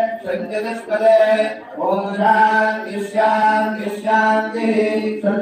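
A male voice chanting mantras in long held, sung phrases, breaking off briefly about two seconds in, as ritual chanting for an abhishekam (ceremonial bathing of a deity's idol).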